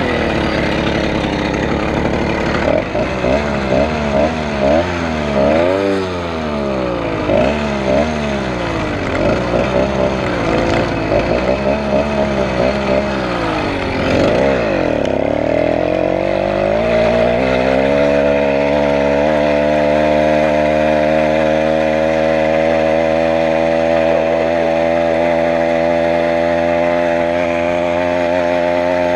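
Stock two-stroke engine of a motorized bicycle under way. For about the first half its pitch rises and falls again and again with the throttle, and it dips low about halfway through. It then climbs and holds a steady high pitch.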